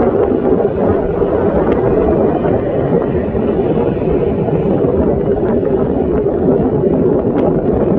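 AgustaWestland AW101 Merlin helicopter running on the ground, its three turbine engines giving a steady, low drone.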